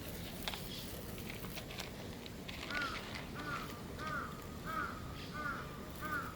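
A crow cawing six times in an even series, about one caw every 0.7 seconds, starting a little under halfway in.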